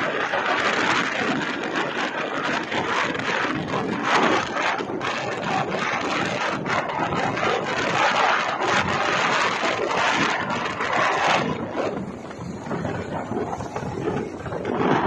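Wind rushing and buffeting over a phone microphone on a moving motorcycle, a dense, loud noise that eases and thins for a few seconds about eleven seconds in before picking up again.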